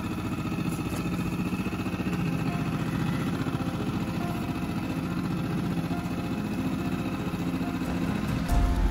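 Boat motor running steadily at low speed. Music with a heavy bass comes in near the end.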